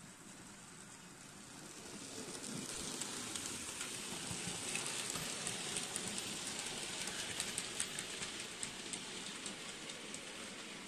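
Model railway goods train running past close by: its wagon wheels give a hissing rattle with a quick run of clicks over the track. The sound builds to a peak a few seconds in, then fades as the train moves away.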